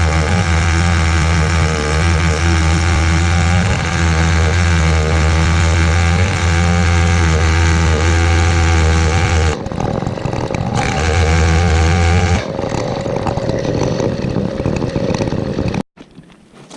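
Big 105cc Stihl 070-clone chainsaw running steadily under load in an Alaskan chainsaw mill, ripping a pine log lengthwise. The engine note dips briefly about ten seconds in, picks up again, then falls off from about twelve seconds and stops abruptly near the end.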